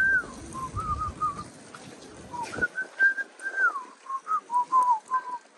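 A person whistling a tune: a string of short held notes with falling slides between them, in two phrases with a brief break about two seconds in.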